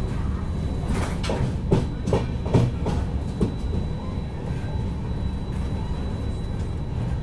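Express train running slowly as it pulls away from a station, heard inside a passenger coach: a steady low rumble with a string of sharp knocks over the first few seconds from the wheels. A faint steady high whine runs under it.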